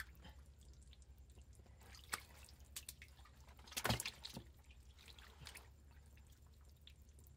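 Hands groping through thin, wet mud: faint squelches and drips, with a louder wet splash about four seconds in.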